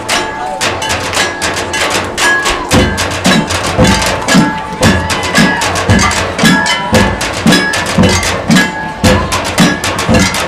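Marching band drumline playing a percussion feature: fast snare and wood-block-like hits, joined about three seconds in by tuned bass drums striking at changing pitches, roughly two strokes a second.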